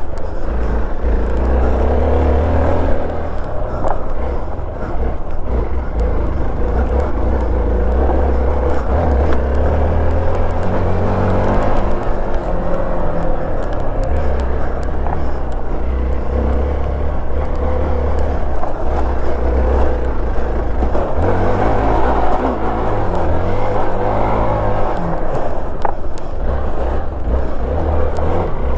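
Motorcycle engine running under load up a rocky dirt trail, its note rising and falling with the throttle every few seconds.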